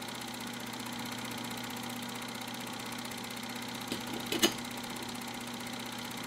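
A steady, even hum, machine-like, with a faint click about four seconds in and a brief, louder knock about half a second later.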